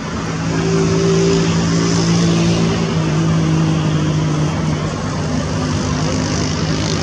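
Steady engine drone: a low hum with overtones that comes up about half a second in and dips slightly in pitch a couple of times, over a wide background rush.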